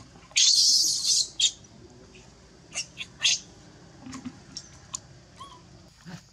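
Baby macaque screaming: a loud, shrill scream lasting most of a second near the start, followed by several short high squeals.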